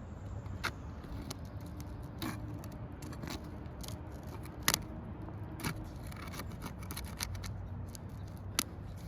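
Asphalt roof shingles being worked loose and handled: irregular sharp snaps, clicks and scraping, the loudest snap a little before the middle.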